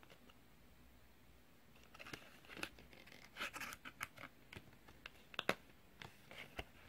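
Thin clear plastic candy tray and paper card handled together: a run of crinkles and sharp clicks starting about two seconds in as the tray is slotted into the card's groove, the loudest click about five and a half seconds in.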